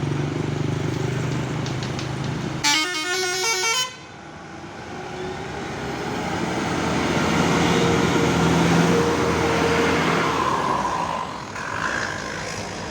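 Bus engine running steadily, then a telolet horn plays a quick stepping multi-note tune for about a second. Afterwards the engine noise swells to a peak and fades as a bus goes by.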